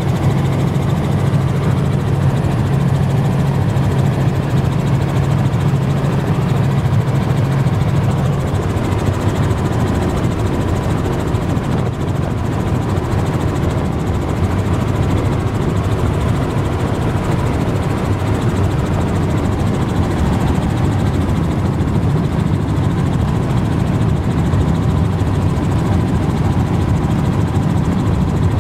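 Helicopter engine and rotor noise heard from inside the cabin in flight: a loud, steady drone with a low hum that eases off about eight seconds in.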